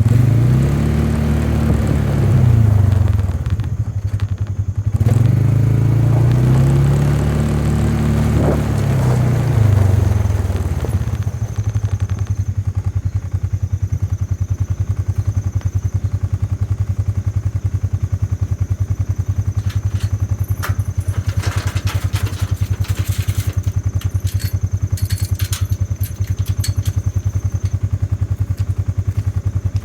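Cattle mooing, two long calls that rise and fall in pitch, one at the start and one from about five to eleven seconds in. Under them a vehicle engine runs steadily throughout, with a few clatters and knocks about two-thirds of the way through.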